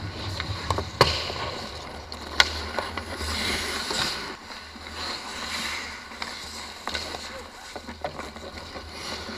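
Hockey skates scraping and carving on rink ice, the scraping swelling in the middle as the goalie pushes across the crease, with two sharp clacks about one and two and a half seconds in, over a steady low rink rumble.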